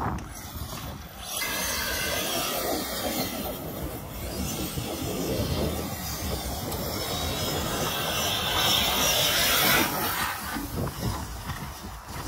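Arrma Kraton 8S radio-controlled monster truck driving over loose dirt: a steady rushing noise of tyres and drivetrain that swells about a second in and is loudest near the end.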